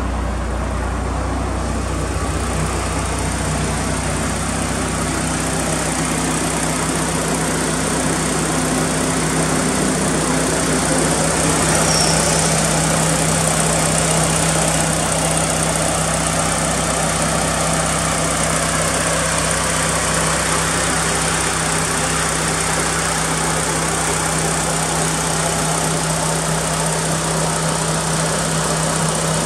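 Mitsubishi Lancer Evolution VII's 4G63 turbocharged two-litre inline-four idling steadily, an even hum with no revving.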